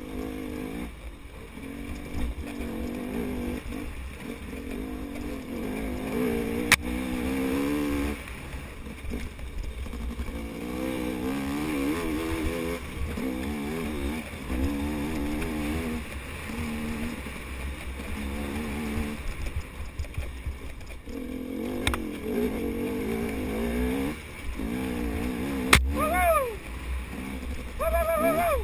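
KTM 250 XC two-stroke dirt bike engine running hard, its pitch rising and falling again and again as the throttle is worked along a tight wooded trail, over a steady wind rumble on the helmet-camera microphone. A few sharp knocks break through, the loudest near the end.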